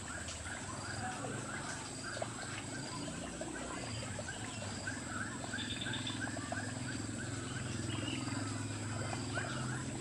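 Outdoor chorus of wild animal calls: many short, rapidly repeated chirping notes with a fainter higher repeated peep, over a steady low hum.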